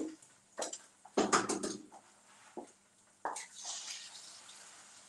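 Eggs cracked against a skillet and dropped into the hot pan: a few sharp knocks of shell on metal, then a hiss of sizzling from about three seconds in that slowly fades.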